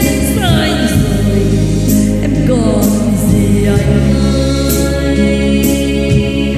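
A slow ballad played on a backing track, with sustained chords and a few sliding notes, and a woman singing into a microphone.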